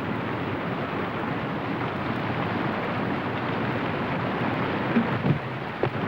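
Whitewater rapid rushing steadily, with a few brief sharper knocks about five to six seconds in.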